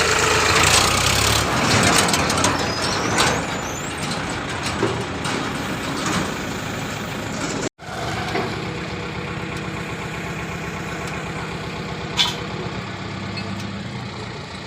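A heavy diesel engine runs with clatter and knocks. The sound cuts out for an instant about halfway through, then an engine runs steadily, with one sharp knock a few seconds later.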